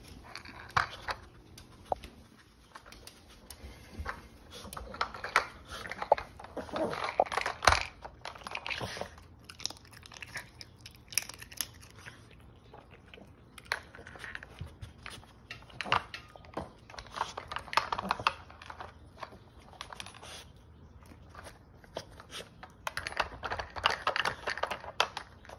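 A small dog working a plastic treat puzzle toy: irregular clicks and clacks of hinged plastic lids and sliding blocks as it noses them, with bouts of chewing on the treats.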